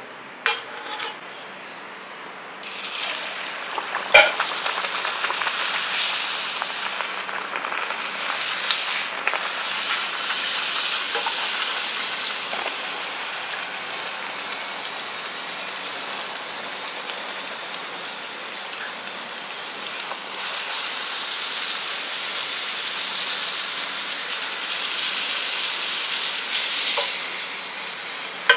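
A green mullu murungai leaf vada sizzling as it deep-fries in hot oil in a steel kadai. The sizzle comes up about two and a half seconds in and dies down near the end, with a single sharp knock about four seconds in.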